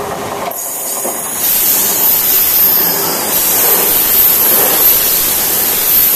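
Voyager diesel multiple unit passing close through a station at speed: a loud rushing of wheels on rail and moving air that swells about a second and a half in.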